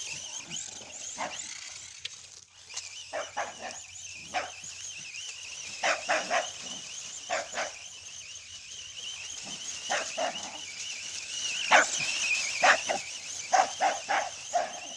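Electric RC car motor whining at a high pitch that wavers up and down with the throttle, while a dog barks repeatedly.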